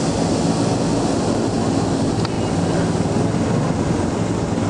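Several small 120-class youth racing snowmobiles running together around the course, their engines a steady continuous buzz.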